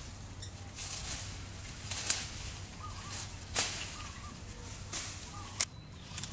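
Leafy branches and vines rustling as they are pulled by hand, with several sharp snaps of twigs breaking; the loudest snaps come about two seconds in and near the end.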